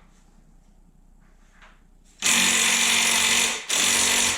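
Handheld power drill running on a rusty bolt of a wooden bench: it starts abruptly about halfway in, runs steadily for over a second, stops briefly, then starts again.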